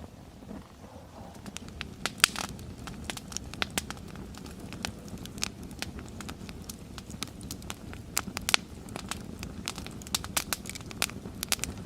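Wood fire crackling: sharp, irregular pops over a steady low rumble.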